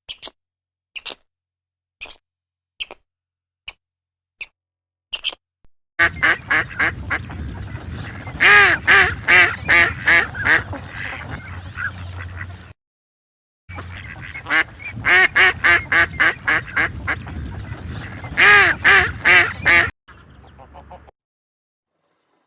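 Ducks quacking: single short quacks about once a second at first, then long runs of fast, loud quacking with a brief pause in the middle.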